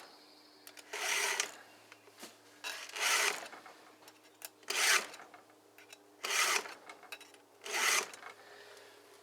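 Hand file rasping across the cutters of a dull chainsaw chain as it is sharpened by hand, five strokes about one and a half seconds apart.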